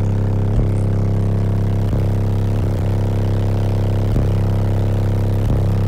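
Two Sundown Zv4 15-inch subwoofers playing a loud, steady bass note, heard from inside the truck's cabin, with a few short clicks scattered through it.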